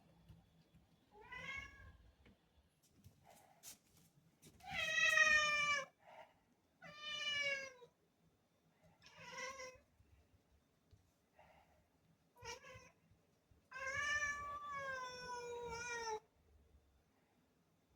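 Domestic black cat meowing again and again, about six calls with pauses between them, one loud call about five seconds in and a long drawn-out one near the end: the cat's cry asking for a door to be opened.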